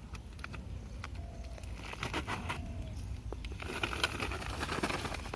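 Rustling and crackling of a sack being handled and opened, in irregular bursts, heaviest about two seconds in and again near the end.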